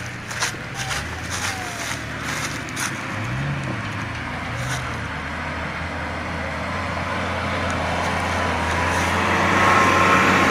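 Suzuki 4x4's engine running at low revs off-road, with two short revs about three and four and a half seconds in, then pulling louder near the end with a faint rising whine. A few clicks and knocks in the first three seconds.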